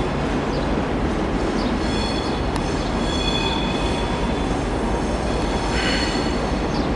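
Diesel-electric locomotive moving slowly over curved station track: a steady low rumble under a sustained high-pitched wheel squeal.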